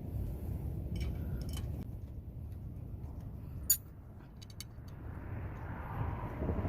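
Low steady background rumble with a few faint metallic clicks, then a passing car's road noise swelling from about five seconds in.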